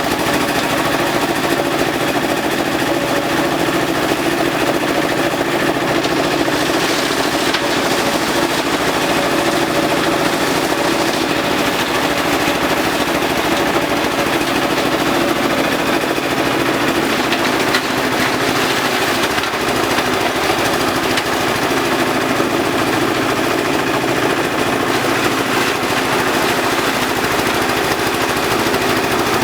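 Compost shredder machine running steadily and loudly, a continuous rapid rattle over a steady drone.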